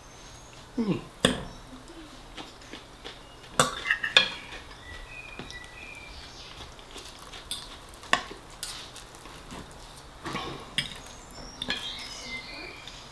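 Metal fork and spoon clinking and scraping on a ceramic plate while eating fisherman's pie, with several sharp clinks spread through and close-miked chewing in between.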